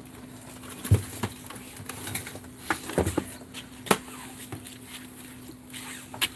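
Light knocks, clicks and rattles of small items being handled and set down, scattered irregularly, with a steady faint hum underneath.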